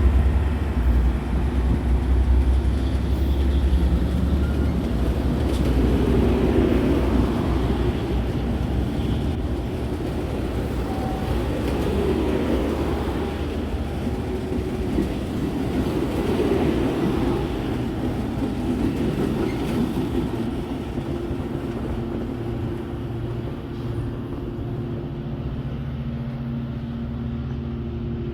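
Diesel-hauled train passing on the tracks. A deep engine rumble is strongest in the first few seconds, then gives way to the steady noise of the cars rolling by, which slowly grows quieter.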